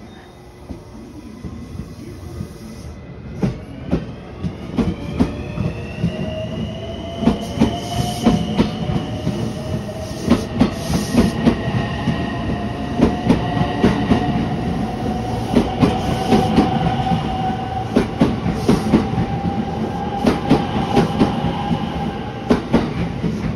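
A JR West Hanwa Line electric commuter train pulling away and accelerating. Its traction motors whine in several tones that rise in pitch over the first several seconds and then level off, while the wheels clack over the rail joints more and more often and the sound grows louder.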